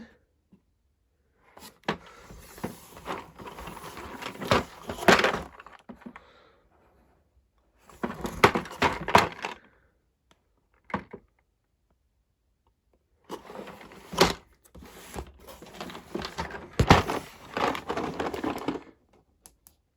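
Cardboard toy-set box being handled and turned over: rustling and knocks in four bursts with silent pauses between them, the sharpest knocks about a third and halfway through and twice near the end.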